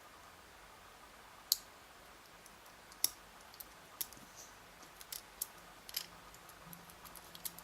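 Scattered sharp, light clicks, a dozen or so at uneven gaps: steel tweezers picking small pins out of a disassembled pin tumbler lock's chambers and setting them down. The loudest click comes about a second and a half in.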